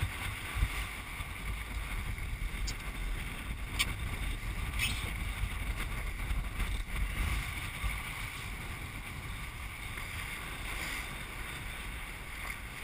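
Wind buffeting the microphone and water rushing along the hull of a small sailboat under sail, with a couple of brief clicks about four and five seconds in; the rush eases a little in the second half.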